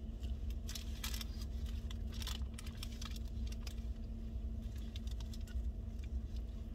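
Crinkling and rustling from handling a sandwich and its paper wrapper, with chewing, a few sharper crackles about one and two seconds in. Under it a steady low rumble of the car.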